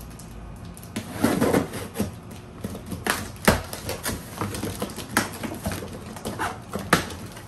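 Scissors cutting through the tape and cardboard of a box, then cardboard flaps pulled open and bent. It comes as an uneven run of sharp crackles and snaps with scraping between them, starting about a second in, with the loudest snaps about halfway through and near the end.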